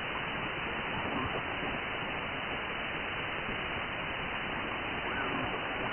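Shortwave receiver hiss: 15-metre band noise from a FlexRadio FLEX-3000 SDR in upper-sideband mode, with no station readable. The steady hiss stops sharply above about 3 kHz at the receive filter's edge.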